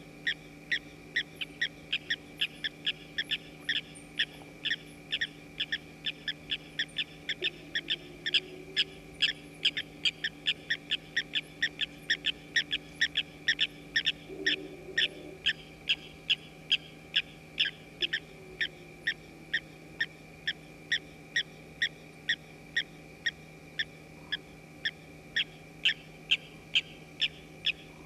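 A night-time animal calling in a long, steady series of short, high notes, about two or three a second, over a low steady hum.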